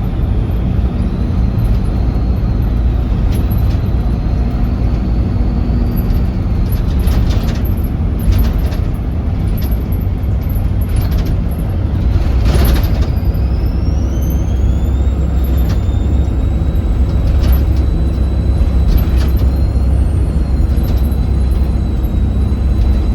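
Volvo B7RLE bus's six-cylinder diesel engine running under way with a steady low rumble and a thin, high turbo whistle; the whistle rises in pitch about two-thirds of the way through, as the engine pulls. A brief hiss cuts in about twelve seconds in.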